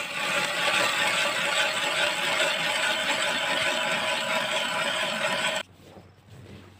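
Ice auger, driven by a cordless drill, boring through lake ice: a steady motor whine over the grind of the blades cutting ice. It cuts off suddenly about five and a half seconds in.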